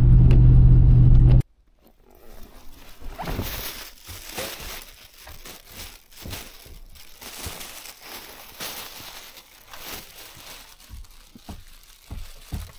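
Steady engine and road noise inside a truck's cab, cut off suddenly a little over a second in. Then irregular crunching footsteps wading through deep fresh snow, with a carried plastic bag rustling.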